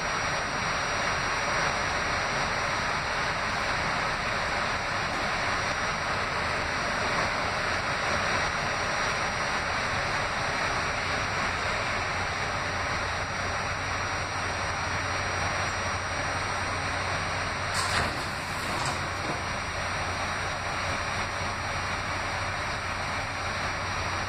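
Inside an R68A New York City subway car running between stations: steady rail and running noise throughout. A couple of sharp clicks come about three quarters of the way through, and after them a low steady hum as the train comes into the next station.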